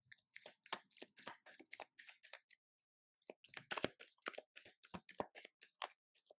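A tarot card deck being shuffled by hand: a quick run of faint card flicks and rustles, breaking off briefly about halfway through and then going on.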